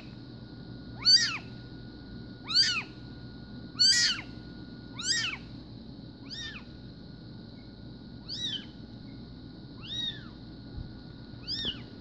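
Young Bengal kitten mewing over and over, about nine high-pitched arching mews roughly a second or so apart, the loudest in the first four seconds and fainter after that.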